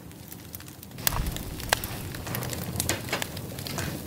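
Wood fire crackling with scattered sharp pops. It gets louder about a second in, with a low rumble under the pops.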